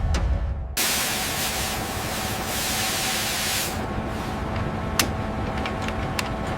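A strong jet of hissing spray or steam starts abruptly about a second in. It is loudest for about three seconds, then eases but keeps going under a few sharp clicks.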